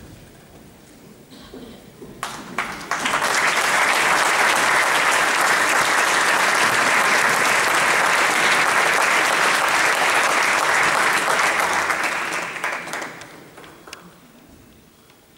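Theatre audience applauding. A few scattered claps are followed by full, steady applause about three seconds in, which dies away a second or two before the end.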